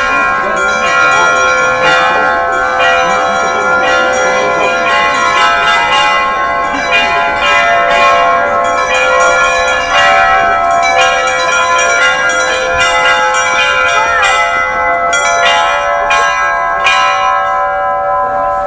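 Russian Orthodox trezvon rung on a portable belfry: several church bells struck in a continuous, busy peal, the smaller bells chiming rapidly over the ringing of the larger ones. The strikes thin out near the end, leaving the bells ringing on.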